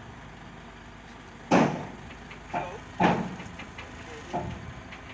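Four heavy bangs over a steady low hum: two loud ones about a second and a half apart, each followed by a softer one.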